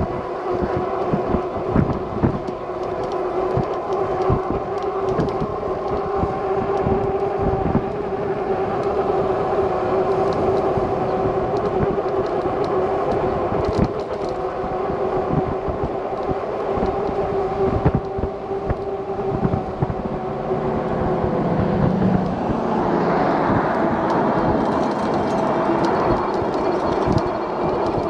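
Lectric XP e-bike riding at a steady speed: a steady whine from the motor and tyres, with wind buffeting the microphone. A broader rush swells about three quarters of the way through.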